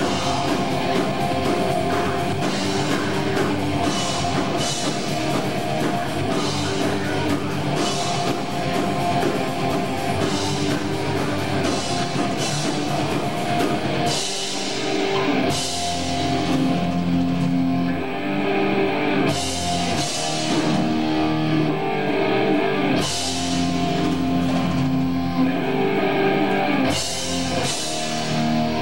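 Heavy metal band playing live: distorted electric guitars and a drum kit. Fast, dense drumming with constant cymbal hits gives way about halfway through to a slower section of held guitar chords and cymbal crashes every few seconds.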